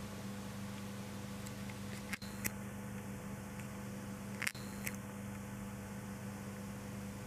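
Indoor room tone: a steady low electrical hum over a faint hiss, broken by a few sharp clicks, a pair about two seconds in and another pair about four and a half seconds in.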